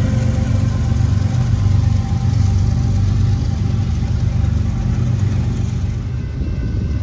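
Diesel locomotive engine running with a loud, steady low drone.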